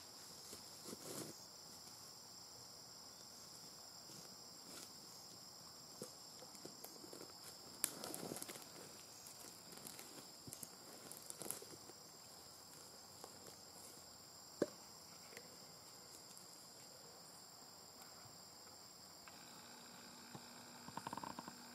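Steady high-pitched drone of insects in the grass. Scattered rustles and a few soft knocks come from a person in a ghillie suit moving through the grass and settling prone behind a rifle.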